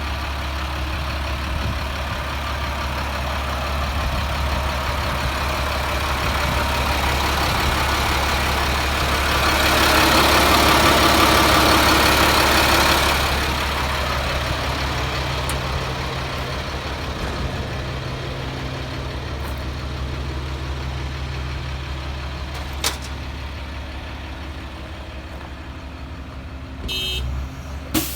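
Caterpillar 3126 diesel engine of a 2001 Freightliner FL80 truck running steadily with a low hum. A louder rushing noise swells for about three seconds near the middle. A short beep sounds near the end.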